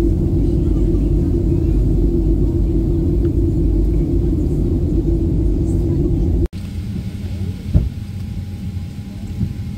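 Jet airliner cabin noise in flight: a steady low rumble of engines and airflow heard from a window seat. About six and a half seconds in it cuts off abruptly to the quieter sound of the plane standing at the gate, a steady hum with one sharp knock.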